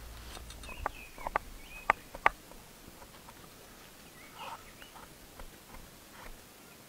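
Large knife cutting through a crusty bread roll on a wooden cutting board: a handful of sharp clicks and cracks in the first two and a half seconds. Birds call now and then in the background.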